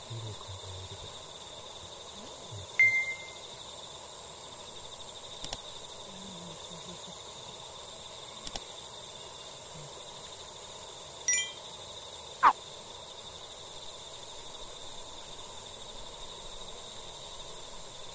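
Evening outdoor ambience of steady, high-pitched insect trilling. A few short chime-like tones and clicks cut in, near the third second and again around eleven to twelve seconds in.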